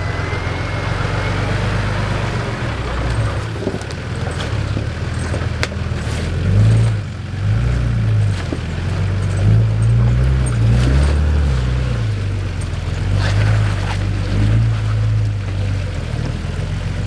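Four-wheel-drive Nissan Patrol engine working under load, revving up and down as the vehicle crawls over rocks and mud, with a few sharp knocks.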